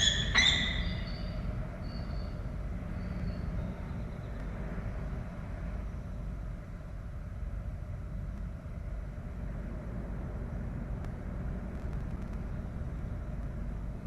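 A peregrine falcon's call ends in the first half second, followed by a steady low rumble with a few faint high chirps in the first few seconds.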